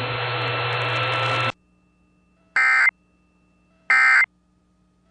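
Radio static hiss with faint steady tones for about a second and a half, then silence. Two short buzzy digital bursts follow, the Emergency Alert System end-of-message (NNNN) code that marks the end of the alert broadcast.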